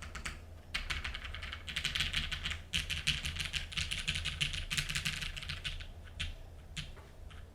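Custom mechanical keyboard with heavily lubed Cherry MX Black linear switches in an aluminium plate, under GMK keycaps, being typed on quickly: a dense run of keystrokes that thins to a few single presses near the end.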